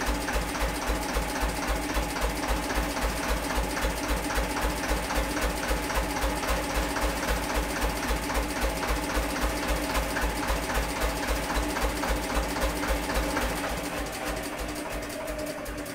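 Vintage stationary engine running with a steady, rapid firing beat. Near the end it drops in level and the beat slows as the engine is shut down.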